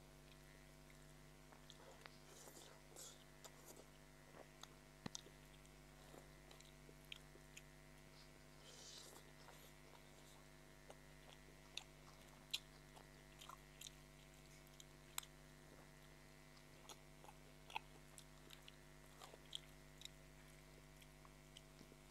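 Close-miked chewing of a mouthful of chow mein noodles, with sharp wet mouth clicks scattered irregularly throughout, over a faint steady hum.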